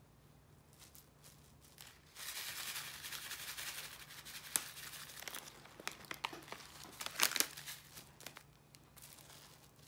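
Plastic cling wrap crinkling as cooked rice is heaped onto it and pressed with a rice paddle. The crinkling starts about two seconds in, with a few sharp clicks among it.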